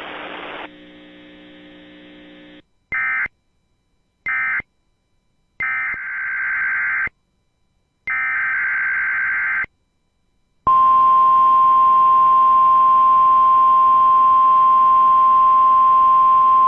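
NOAA Weather Radio weekly test signalling: short bursts of SAME digital header tones separated by silence, then, about eleven seconds in, the loud steady 1050 Hz weather radio warning alarm tone comes on and holds. It opens with a moment of radio hiss and a quieter steady hum before the bursts.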